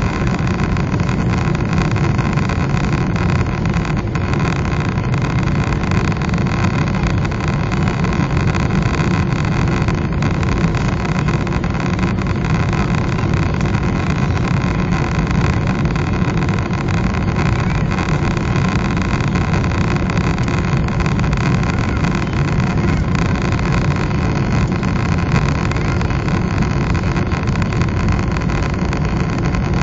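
Steady cabin noise of a Boeing 777-300 in flight: a loud, even, low rush of engine and airflow noise heard from a window seat beside the wing, unchanging throughout.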